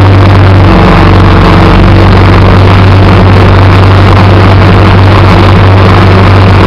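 Small engine of a snow-clearing machine running steadily under load, loud and close, with a small change in its note about a second in.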